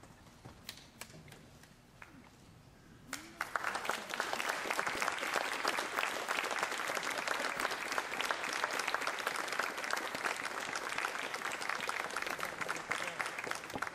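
A few quiet seconds with faint clicks, then an audience breaks into applause about three seconds in and keeps clapping steadily.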